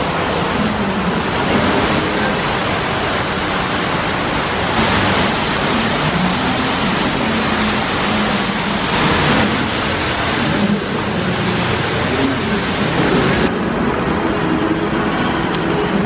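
Steady loud hiss with a car engine running at idle underneath. The hiss thins abruptly about thirteen seconds in.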